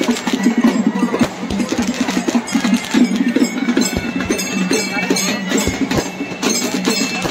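Crowd of many voices over music with percussion, with sharp knocks scattered through.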